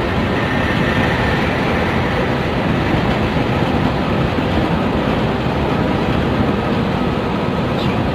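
Intercity coach running on the road: steady engine and road noise, even and unbroken.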